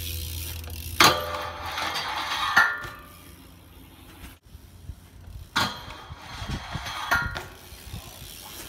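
BMX bike rolling over pavement with its rear hub ticking as it coasts. There are several sharp knocks of the bike, about one, two and a half, five and a half and seven seconds in.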